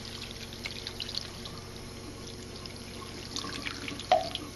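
Bath water dripping and splashing in small scattered drops in a baby bathtub, with one brief louder sound about four seconds in.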